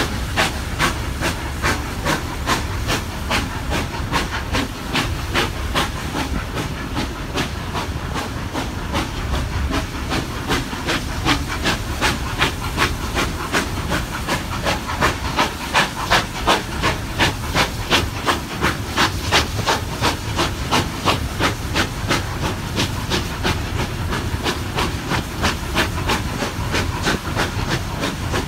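Steam locomotive working along at speed, its exhaust chuffing in a steady rhythm of about two beats a second, heard from a carriage over the low rumble of the train running on the rails.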